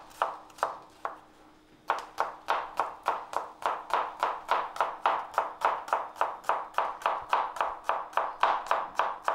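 Knife chopping a shallot finely on a cutting board. A few slower cuts, a pause of about a second, then a quick, even rhythm of about four chops a second.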